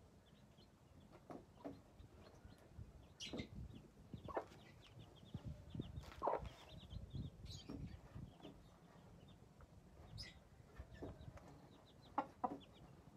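Mother hen clucking in short, low calls while her small chicks cheep around her with many faint, quick peeps. The clucks come irregularly, the loudest about halfway through and again near the end.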